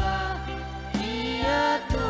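Male choir singing held notes over instrumental accompaniment with a steady bass and a beat struck about once a second.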